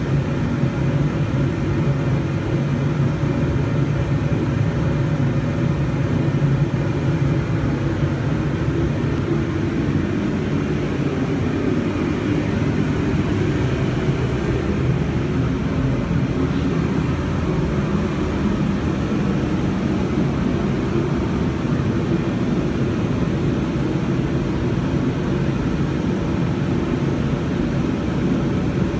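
ATV engine idling steadily, a low, even hum with no revving.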